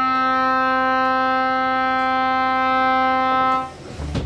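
Trawler yacht's horn sounding one long, steady blast that cuts off about three and a half seconds in: the fog signal of a motor vessel underway in poor visibility. The low hum of the boat's engine is left after it stops.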